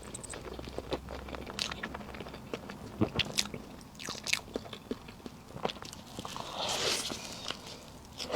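Close-miked eating of a soft, chewy layered cake: irregular wet chewing clicks and mouth smacks, with a longer soft rasping sound about seven seconds in.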